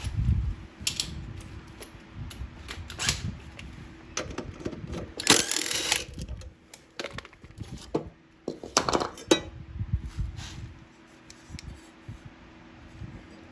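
Scattered metal clicks and knocks as a lawnmower blade bolt is unscrewed and the blade is taken off, with a short rasping burst a little after five seconds in.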